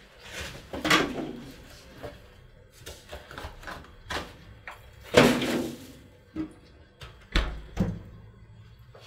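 A cardboard pizza box is handled and slid into a refrigerator's freezer compartment, with scrapes and knocks. The freezer door is then pushed shut with a low thump about three-quarters of the way through.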